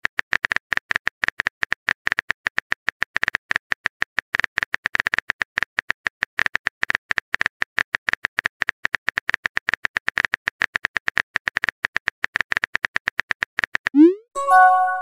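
Phone-keyboard typing sound effect: a fast, uneven run of short clicks, one per letter typed. Near the end the clicks stop and a short rising swoop and a chime play as the message is sent.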